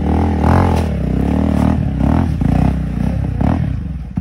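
Off-road motorcycle engine revving unevenly as the bike climbs over rocks, the pitch rising and falling with repeated throttle bursts, with some clatter over the stones.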